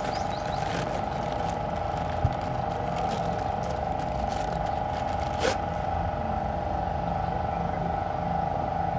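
Plastic bag crinkling as a new rubber steering rack boot is unwrapped, over a steady mechanical hum from a running machine. One sharp knock about two seconds in and a click about halfway through.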